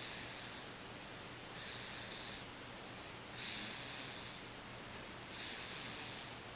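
Sleeping baby snoring: a short, breathy, hissing snore about every two seconds, four in all.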